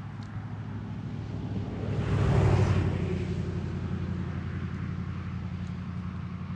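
Steady low hum of road traffic, with one vehicle passing louder about two and a half seconds in.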